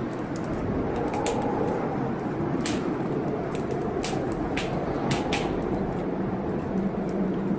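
Wood fire in a fireplace crackling, with sharp pops every second or so, over a steady low rumble of storm rain.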